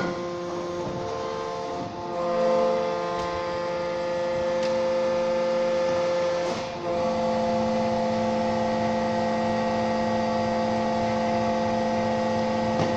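Negri Bossi V480 injection molding machine's hydraulic pump and motor running through a molding cycle: a steady whining hum of several pitched tones. It swells about two seconds in, drops out for a moment around the middle, then settles again with a stronger low tone as the machine moves between stages of the cycle.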